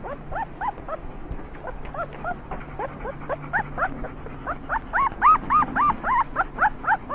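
German Shepherd puppies whining: many short, high-pitched calls, each rising and then falling in pitch, several a second, louder in the second half.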